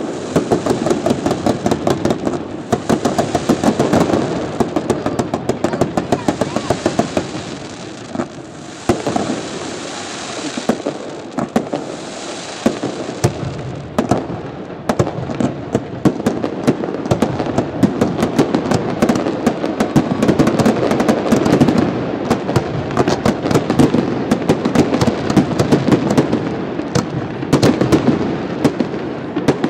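Fireworks display going off in rapid succession: dense volleys of bangs and crackling bursts. A hissing rush runs under them through the first half and fades out.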